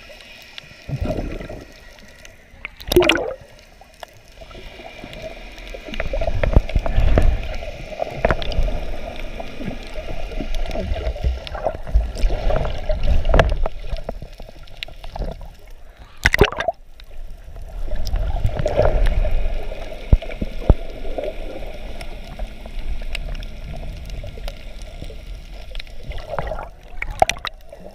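Underwater sound picked up through a waterproof action-camera housing: muffled water rushing and gurgling over a steady hum, swelling and fading as the swimmer moves. A few sharp knocks stand out, about three, sixteen and twenty-seven seconds in.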